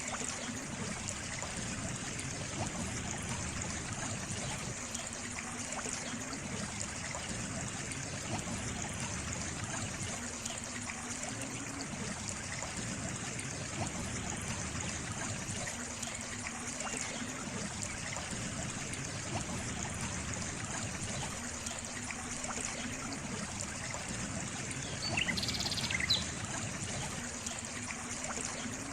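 Water trickling and running steadily, like a small stream. About 25 seconds in there is a brief high-pitched sound, a little louder than the water.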